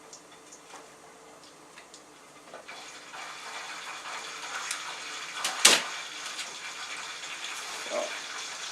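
Light clicks, then a steady hiss that starts about three seconds in and carries on, with one sharp clack a little past halfway.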